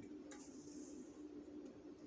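Near silence with a faint steady hum, and faint soft scraping as a spatula scrapes batter out of a stainless steel mixing bowl.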